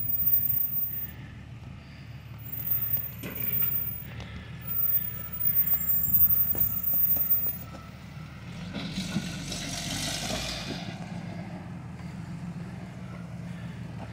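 Off-road Jeep engine running and revving in surges. About nine seconds in comes a rush of noise lasting about two seconds.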